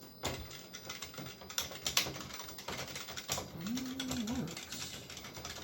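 Keys of a TRS-80 Model III keyboard pressed one after another in irregular clicks, the key switches being tested after repair. A brief low hum sounds near the middle.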